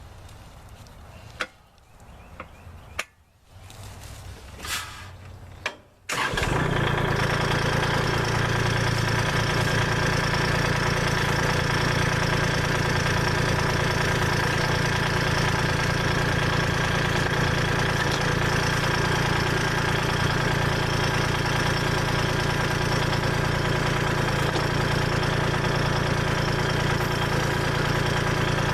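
A few sharp clicks and knocks, then the Kubota L2501 tractor's three-cylinder diesel engine comes in abruptly about six seconds in and runs steadily.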